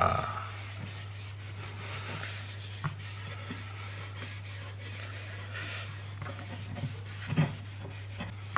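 Cloth rubbing over a steel axe head in soft swishing strokes, with a few light knocks, over a steady low hum.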